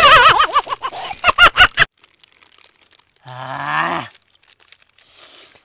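Men laughing loudly with no words: a high, wavering, shrieking laugh for about two seconds, then a shorter, deeper laugh about three seconds in.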